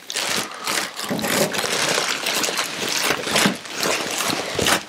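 Plastic packing bag crinkling and rustling irregularly as a boxed item is pulled out of it and up out of a cardboard carton.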